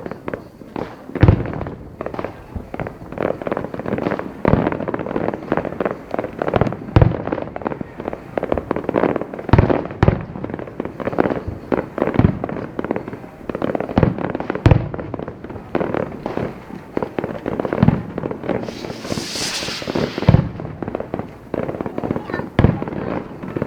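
Fireworks display bursting: a dense, irregular run of deep booms, several close together at times, with a brief high hiss about nineteen seconds in.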